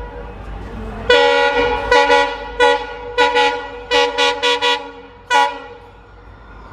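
EMD WDP4D diesel locomotive's horn sounding a rapid series of about eight short blasts between one and five and a half seconds in, the first blast the longest.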